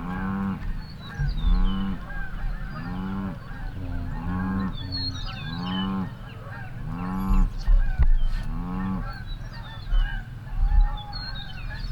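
Geese honking as a flock comes in: one loud arched honk repeats about every second and a half, over the scattered higher calls of many other geese.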